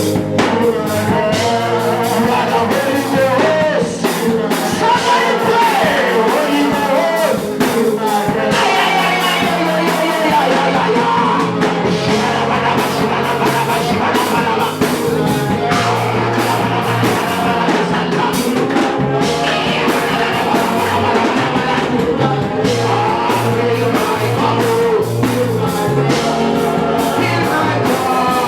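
Worship music: a band with drums playing under singing voices.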